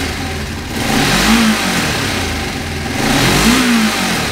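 Kawasaki Vulcan 500's parallel-twin engine idling and revved twice by blips of the throttle, each rev rising and falling back to idle over about a second. The engine has just been brought back to life after sitting unused for years.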